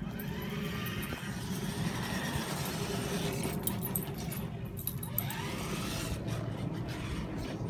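Radio-controlled monster truck driving on concrete, a steady low rumble with a faint pitch that rises and falls as it speeds up and slows down.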